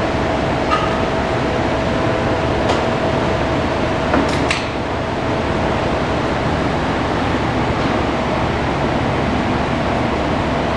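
Steady fan-like rushing noise of a running machine, with a faint steady hum that fades out about halfway and a few light clicks in the first half.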